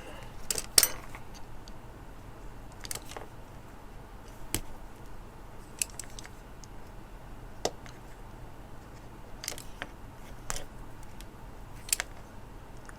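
Irregular small sharp clicks and snips of hand tools, a cutter among them, working the tiny metal crimp terminal and thin brittle wire of a breadboard jumper wire, the loudest about a second in.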